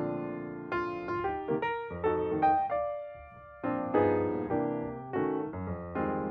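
Piano music: notes and chords struck one after another, each dying away, thinning out briefly about three seconds in.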